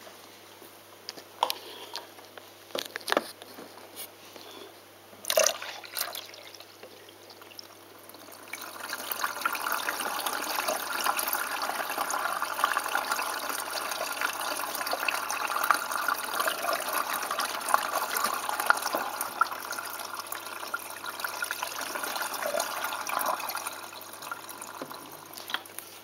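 Balay T-8295 washing machine drawing water into its drum for a rinse: a few scattered knocks at first, then from about a third of the way in a steady rush of inflowing water that eases off near the end.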